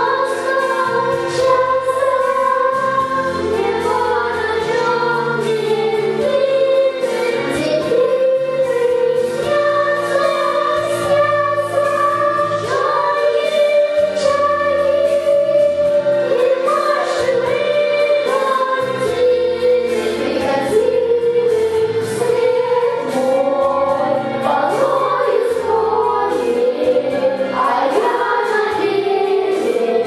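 A children's vocal ensemble singing together into microphones, holding long notes over an instrumental accompaniment with steady bass and light percussion.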